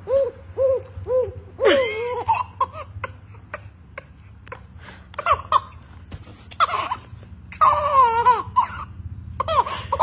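Baby laughing: a run of short, rhythmic giggles, then longer squealing laughs about two seconds in and again near the end.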